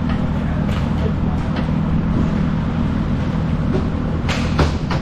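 Roller hockey play: a few sharp clacks of sticks and puck, two louder ones near the end, over a steady low hum of the indoor rink hall.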